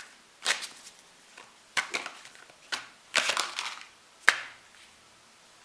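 Tarot cards being handled and laid on a table: several short brushing swishes, then a sharp snap a little over four seconds in.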